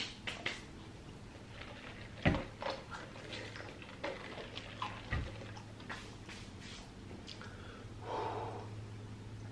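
Close-miked eating sounds: mouth smacks, swallowing and a sip from a soda cup, with a few sharp clicks, then a breathy exhale near the end. A steady low hum runs underneath.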